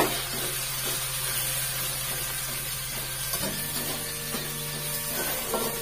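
Sliced shallots, garlic, chilies and tomato sizzling in hot oil in a wok as they are stir-fried. A spatula clacks sharply on the wok at the start and knocks against it a few more times later.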